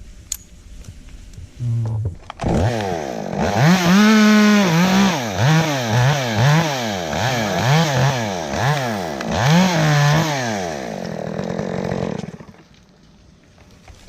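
Chainsaw starting up about two seconds in, then revved up and down over and over, its pitch rising and falling a little more than once a second, before it stops near the end.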